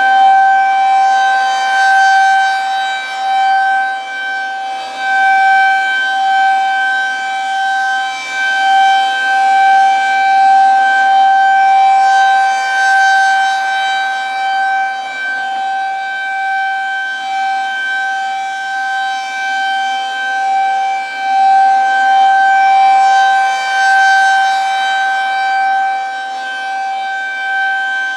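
Federal Signal 2001-SRN outdoor warning siren sounding its Full Alert: one steady, unwavering tone. Its loudness swells and fades slowly as the 6 RPM rotating horn sweeps toward and away.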